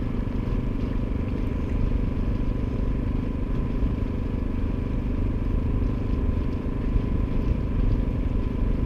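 A fishing boat's outboard motor running steadily under way, a constant low drone.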